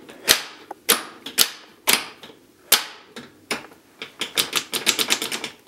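Sharp metallic clicks and snaps as the ATV's control linkages are worked and adjusted by hand. A few scattered clicks come first, then a quick, irregular run of clicks starting about three and a half seconds in.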